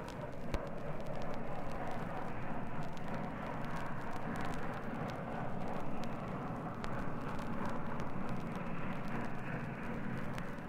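Steam train heard on an old vinyl LP field recording: a steady rumbling rush of the moving train, swelling and easing slightly, with no whistle. Record-surface clicks and crackle run through it.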